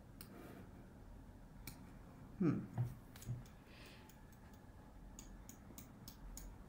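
Faint clicks and taps of hands handling small objects, with a quick run of about eight light clicks near the end. A brief low murmur of a voice about halfway through.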